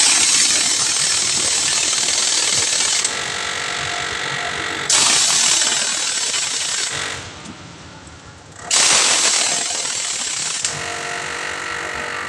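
Pneumatic impact wrench running on a truck wheel's lug nuts in long loud bursts, with a brief pause about seven seconds in.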